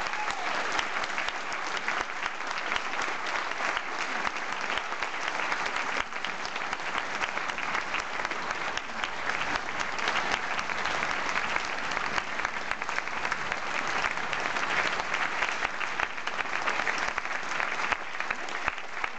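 Audience applauding steadily, a dense, continuous patter of hand claps.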